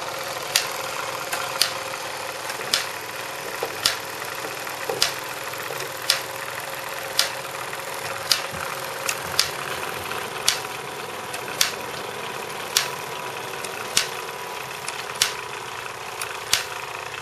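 Wilesco D14 toy steam engine running under load, driving model workshop accessories through lineshafts and string belts: a steady mechanical whirr with a sharp click about once a second.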